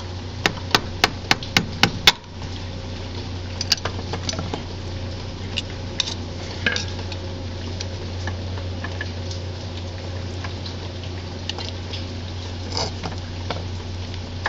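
Seven sharp metal taps in quick, even succession, then scattered lighter clicks and scrapes of a screwdriver working at the old lower crankshaft oil seal of a Kawasaki 25 HP engine to pry it out. A steady low hum runs underneath.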